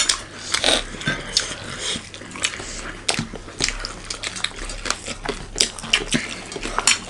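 Close-miked eating sounds: chewing and mouth noises over rice and curry, with irregular clicks of cutlery or fingers against a plate.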